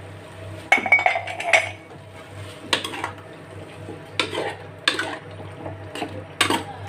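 A cooking utensil stirring chicken stew in a metal pot, scraping and knocking against the pot's sides about once a second.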